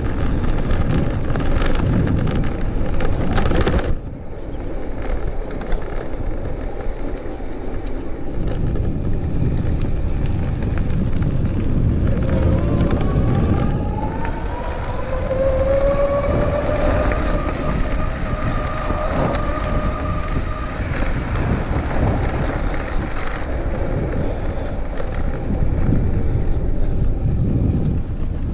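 Electric bike riding over a gravel path: a steady rumble of tyres and wind on the microphone. About halfway through, the 48V 1000W rear hub motor's whine rises in pitch as the bike speeds up under throttle, holds for a few seconds, then fades.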